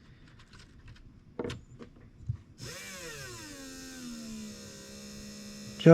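Tyco Magnum 440X2 slot car's small electric motor running with no load. About two and a half seconds in it starts with a falling pitch, then settles into a slow, steady hum. It is run slowly to break in the brushes against the commutator. A few light clicks come before it.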